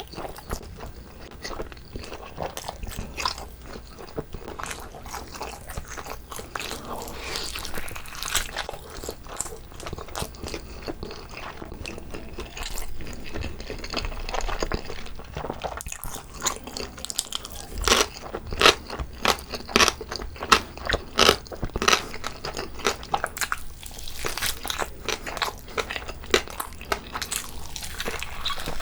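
Close-miked eating sounds: a person biting and chewing, with wet, sticky mouth clicks and smacks. A run of louder, sharper bites comes about two-thirds of the way through.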